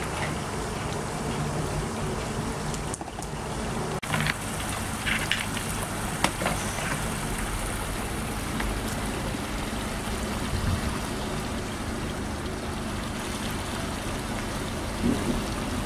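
Muddy floodwater in a drainage ditch trickling and gurgling as it flows into a drain inlet, with a few short knocks between about four and six and a half seconds in as a boat hook pokes at the inlet.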